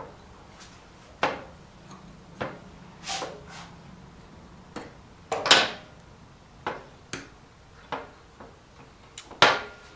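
Ductile-iron piston ring being spread open with a ring expander and worked onto the piston: a dozen or so irregular small metal clicks and scrapes, some with a short ring after them, the loudest about five and a half seconds in and near the end.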